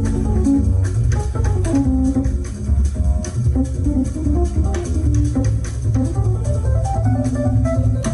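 Instrumental music for a modern dance piece: a deep, steady bass under a melody of short pitched notes, with many sharp clicks running through it.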